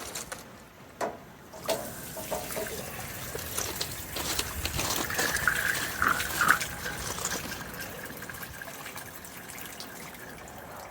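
Vinegar-and-water solution draining out of an RV water heater tank's drain opening and splattering onto the ground, a steady run of water after a couple of sharp knocks about a second in.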